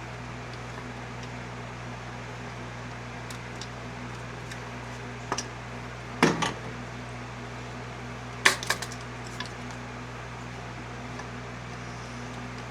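Hand tools clinking and knocking against metal engine parts: a few scattered short clinks, the loudest two about six and eight and a half seconds in, over a steady low hum.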